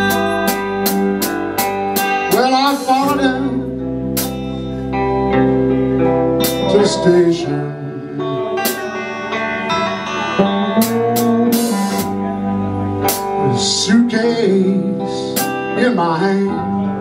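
Live blues band: two electric guitars over a steady beat, with a man singing in phrases at the microphone.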